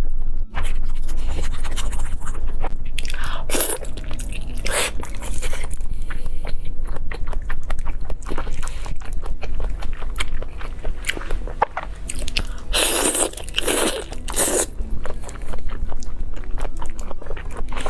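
Close-miked eating of crunchy fried food: continual chewing with small crackles, and loud crisp bites a few seconds in and again in a cluster near the end.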